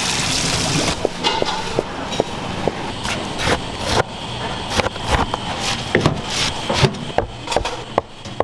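Tap water running onto food in a metal strainer for about the first second, then a cleaver chopping on a cutting board: many sharp, irregular knocks.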